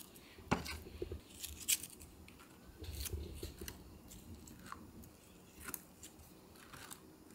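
Thin apple slices being picked off a wooden cutting board and laid into a ceramic bowl of sugar water: faint, scattered light clicks and taps, about one every second.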